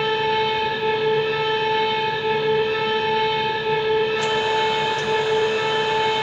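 A steady, unwavering held tone with overtones from the video's soundtrack, like a long whistle; a hiss joins it about four seconds in.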